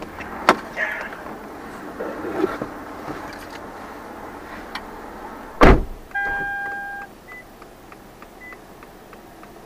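Sounds inside a stopped car after a minor fender-bender: scattered clicks, then a loud thump a little past halfway, followed by a steady electronic beep lasting about a second. After the beep comes a light, even ticking of about three ticks a second.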